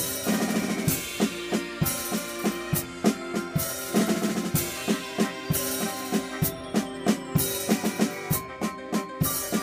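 Acoustic drum kit played in a busy rhythm of bass drum and snare hits, with repeated cymbal crashes ringing out every second or two.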